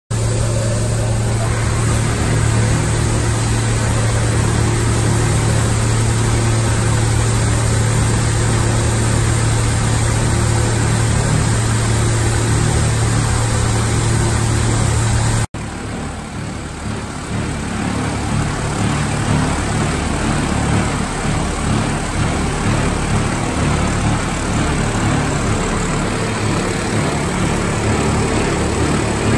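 Automatic two-unit right-and-left carpet overlock machine running: its sewing heads and drive motors make a steady mechanical noise with a strong low hum. About halfway through the sound changes abruptly, the hum drops away and a rougher steady machine noise continues.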